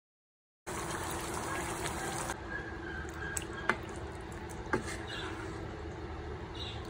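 Chicken curry simmering and being stirred with a wooden spatula in a nonstick pan: a steady wet bubbling, with two sharp knocks a second apart in the middle. The sound starts suddenly about half a second in.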